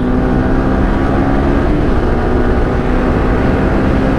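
Yamaha R15 V3's single-cylinder engine running at a steady cruising speed while the bike is ridden, heard through a microphone inside the rider's helmet. The engine pitch stays nearly level, over a steady low rumble.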